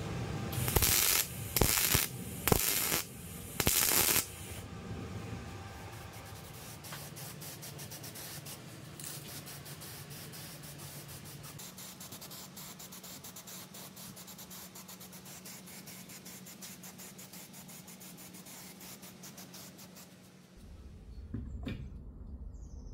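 MIG welder firing four short crackling bursts while tack-welding a bolt to a steel bar, followed by a long, steady hiss of an aerosol spray-paint can coating the steel frame.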